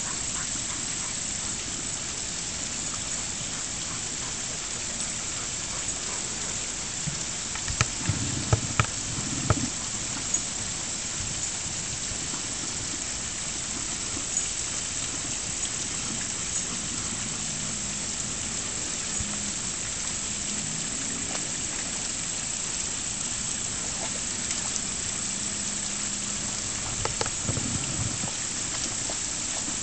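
Small stone waterfall of a garden koi pond splashing steadily into the water. A few short knocks and splashes stand out about eight seconds in and again near the end.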